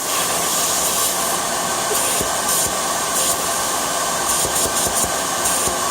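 BMW M54 3.0-litre straight-six running with a steady, loud hiss of air being drawn in through an air leak.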